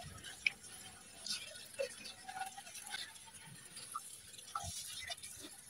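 Faint, scattered rustles and light clicks of a bare hand tossing and mixing shredded banana stem, dried fish and spice powders in a metal wok.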